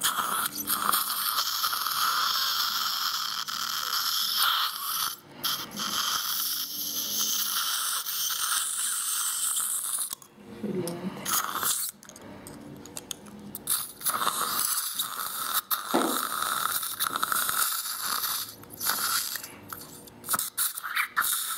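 Dental surgical equipment running during extraction of an impacted lower third molar: a steady hiss with a whine in stretches of a few seconds, cutting out briefly several times.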